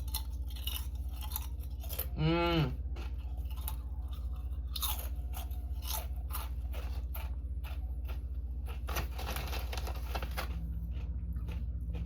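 A person chewing kettle-cooked potato chips with the mouth close to the microphone, giving irregular crisp crunches, with a short hum from the voice about two seconds in.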